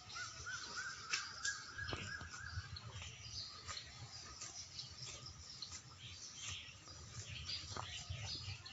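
Birds chirping and calling. A quick run of repeated rising-and-falling notes fills the first couple of seconds, with scattered short high chirps throughout and a faint low rumble underneath.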